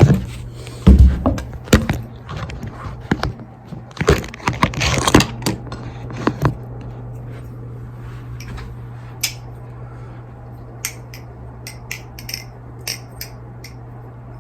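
NRB Vortex balisong (butterfly knife) being flipped: its 6061 aluminium handles clack and click against each other and the blade in quick irregular runs. The clicks are busiest in the first half and sparser later, over a low steady hum.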